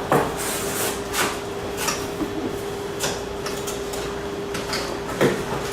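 Cardboard flaps being folded over and their tabs pushed into slots: a run of short, irregular rustles and scrapes, over a steady faint hum.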